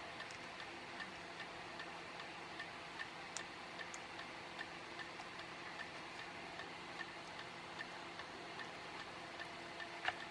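Faint, regular ticking over a low steady hum. Near the end come a couple of sharper clicks as flush side cutters snip the component leads on a circuit board.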